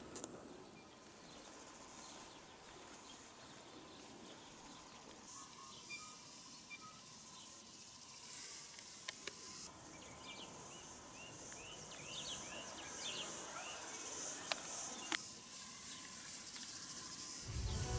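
Faint outdoor bush ambience: a steady high insect hiss with scattered short bird chirps through the middle, and a few sharp clicks.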